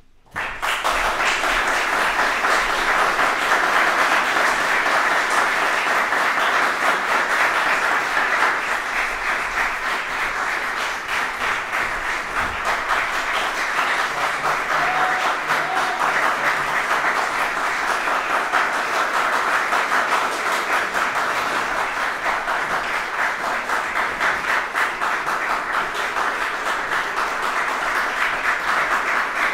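Audience applause breaks out suddenly from near silence just after the start and keeps up steadily as dense clapping.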